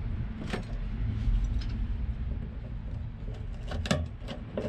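A few short clicks and taps of metal pliers being set onto a fuel-line fitting on a car's fuel pump cover, over a steady low rumble.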